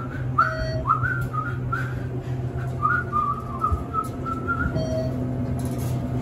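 A person whistling a short, wandering tune over the steady low hum of an elevator car travelling upward. Two brief beeps come, one about half a second in and one near the end.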